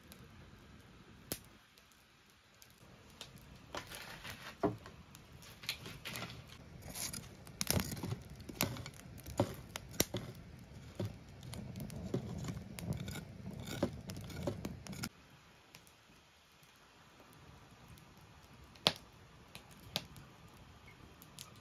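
Kitchen work sounds: irregular clicks, knocks and scraping of utensils being handled. They come thickest in the middle, with a rustling, scraping stretch before they thin out near the end.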